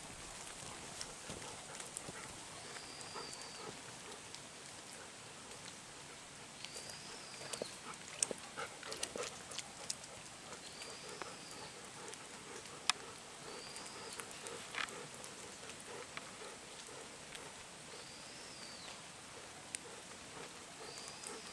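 A bird repeating a short high call that rises and falls, about every three to four seconds, over a faint steady high-pitched insect drone. A few sharp clicks come in between, the loudest about 13 seconds in.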